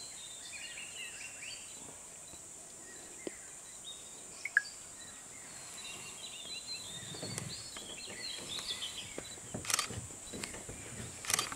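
Outdoor forest ambience: a steady high insect drone with many short bird chirps and twitters, heaviest at the start and again past the middle. Two short sharp knocks near the end.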